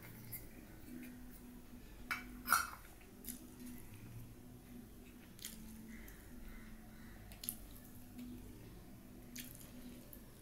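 Fingers mixing rice and vegetable curry on a steel plate, with a few small clicks. A steel bowl clinks down twice about two seconds in, the loudest sound, over a faint steady hum.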